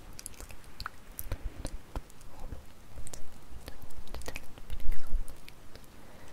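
Bonfire crackling: irregular sharp pops and snaps over a low rumble, which swells about five seconds in.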